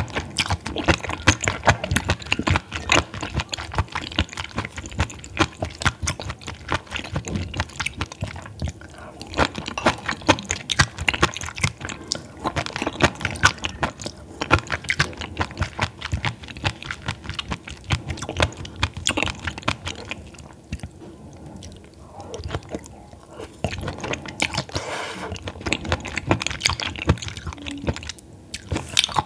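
Close-miked chewing of raw baby squid (horaegi) sashimi: rapid, dense mouth clicks and smacks as the firm raw flesh is chewed. The chewing eases off briefly about two-thirds of the way through.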